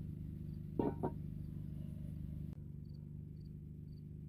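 A steady low hum with two sharp clicks about a second in. The background drops abruptly midway, and faint high chirps then repeat about twice a second.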